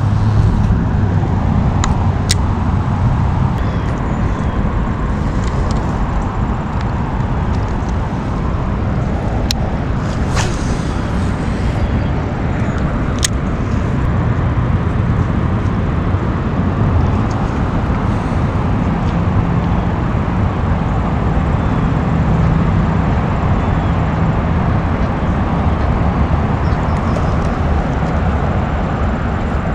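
Steady low rumble of road traffic, with a few short sharp clicks.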